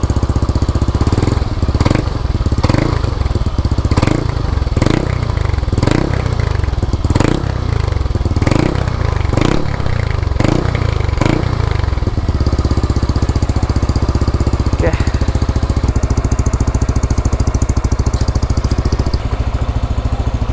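Yamaha NMAX scooter's single-cylinder engine running through an aftermarket OPP Podium power pipe exhaust, the throttle blipped repeatedly about once a second for the first twelve seconds, then settling to a steady idle.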